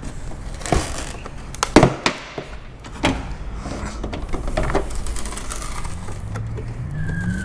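Irregular sharp cracks and knocks, half a dozen or so, the loudest a little under two seconds in, as a car's rear wing spoiler is pried and knocked loose from its mounting clips. Music comes in near the end.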